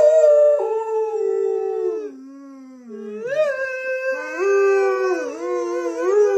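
A dog howling in long, drawn-out, wavering howls. The howl drops lower and quieter for about a second midway, then rises again.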